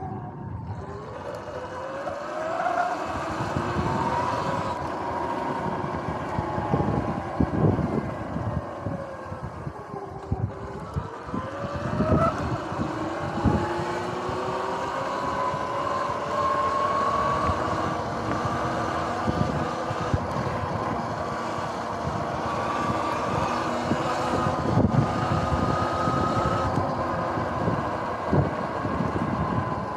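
Electric dirt bike's motor whining, its pitch falling as the bike slows and rising again as it speeds up, notably near the start and about ten seconds in. Wind buffeting on the microphone makes an uneven rumble underneath.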